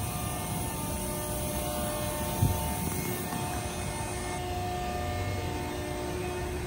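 Steady low mechanical drone with an even hum, typical of engines or machinery running at an industrial loading dock, with one dull thump about two and a half seconds in.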